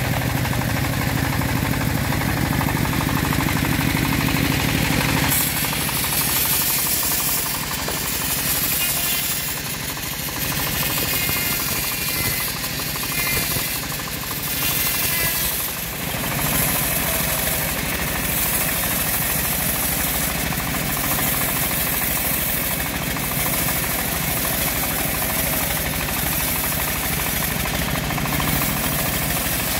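Homemade bandsaw mill running steadily, its engine humming and the band blade sawing through a large acacia log. About five seconds in, the sound turns brighter and hissier.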